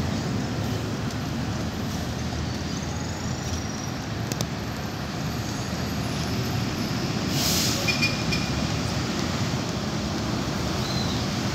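Steady low rumble of outdoor road traffic and wind noise, with a short hiss about seven and a half seconds in and a few faint brief high chirps.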